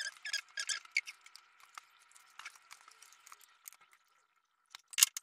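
Wet squishing and patting of hands rubbing salt and calamansi over a large raw fish in a glass baking dish, in many short irregular sounds, with a sharper knock near the end.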